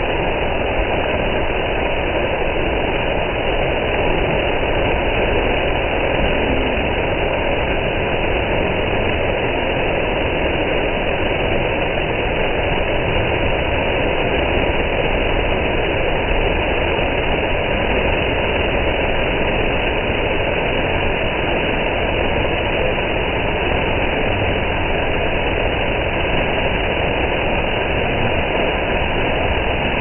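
Waterfall crashing onto rocks: a loud, steady rush of water with a low rumble underneath.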